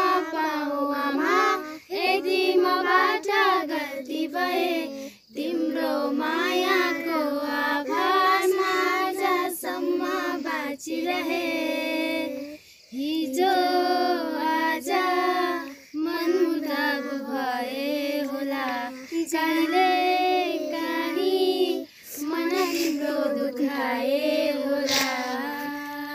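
A group of women and children singing a song together in sung phrases, with short breaks between lines.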